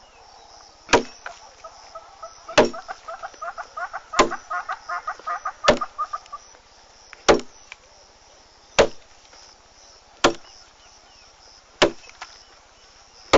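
Axe chopping into wood: nine sharp strikes, evenly spaced about one and a half seconds apart. Rapid chattering bird calls run under the first few strikes, then stop.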